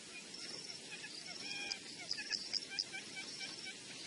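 Wild birds chirping and calling: many short high chirps, a short high trill repeating about once a second, and a few sharper, louder chirps a little past the middle.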